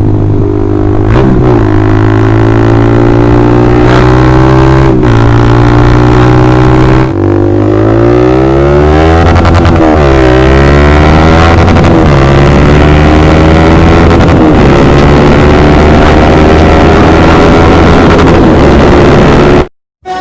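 Honda CBR150R's single-cylinder four-stroke engine through a loud Austin Racing aftermarket exhaust, its pitch rising and falling several times as the throttle is opened and eased off. It cuts off abruptly near the end.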